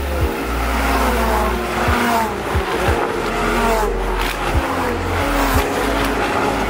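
Ferrari Challenge race cars running at speed, their engine notes falling in pitch several times over as cars pass by or shift down.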